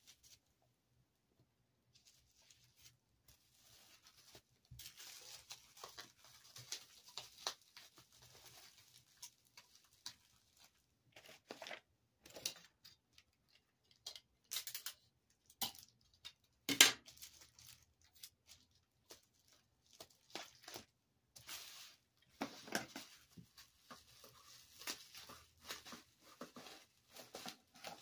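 Plastic bubble wrap crinkling and rustling in irregular bursts as it is folded around a small trinket box, with one louder sharp crack about seventeen seconds in.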